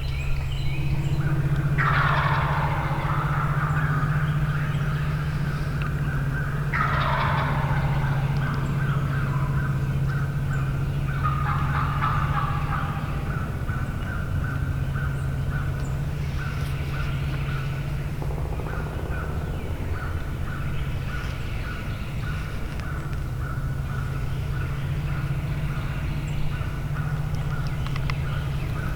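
Wild turkey gobblers gobbling, three loud rattling gobbles in the first half, over a steady low hum.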